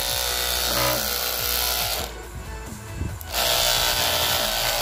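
Small 5 V DC motor of a homemade hand whisk spinning its wire whisk with a high whirring rattle. The whirring stops about two seconds in and starts again about a second later. Background music plays under it.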